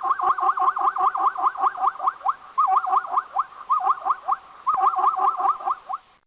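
Zebra calling: a rapid run of short pitched notes that rise and fall, about five or six a second, broken twice by brief pauses and cutting off suddenly near the end.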